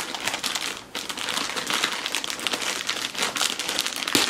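Clear plastic packaging bag crinkling as it is handled and picked open by hand, with a short lull about a second in.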